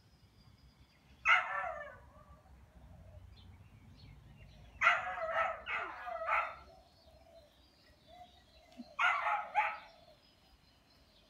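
A dog barking: a single bark about a second in, a run of about four barks around the middle, and two more near the end.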